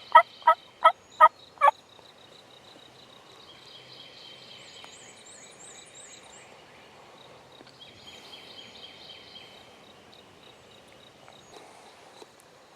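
A loud series of turkey yelps, about three notes a second, ending about a second and a half in, followed by faint songbirds trilling.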